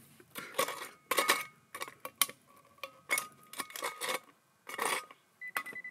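A small hand digging pick knocking and scraping among stones and gravel, a string of irregular sharp clinks. Near the end a metal-detecting pinpointer starts a steady, rapidly pulsing high beep, its signal that it has found metal in the hole (an old nail).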